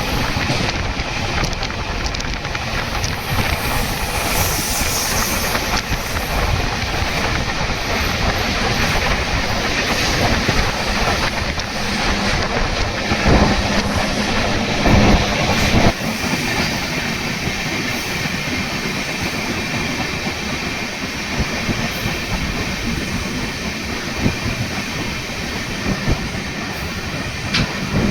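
Indian Railways express train (the Howrah Mail) running along the line: a steady rumble with wheels clattering over rail joints, and a few louder knocks about halfway through.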